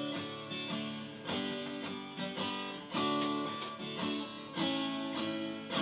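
Acoustic guitar strummed in a slow pattern, a chord struck about every second and a half and left to ring out, with lighter strokes in between.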